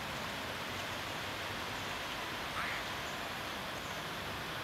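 Steady outdoor background hiss, with one brief faint high-pitched squeak a little past halfway.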